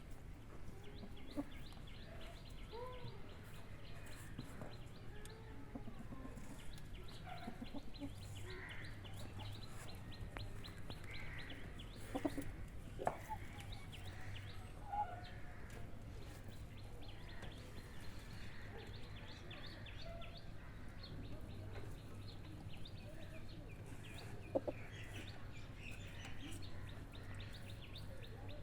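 Chickens clucking now and then over a low steady hum, with a few louder, sharper calls around the middle and one near the end.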